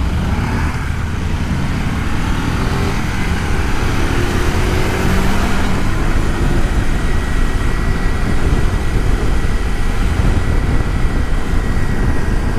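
Wind and road noise at a helmet-mounted microphone, with the visor closed, over a Kawasaki Versys-X 300's parallel-twin engine while riding; the engine note rises as the bike accelerates a few seconds in.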